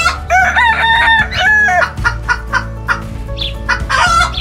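Outro jingle: music with a steady beat, with chicken clucking calls over it.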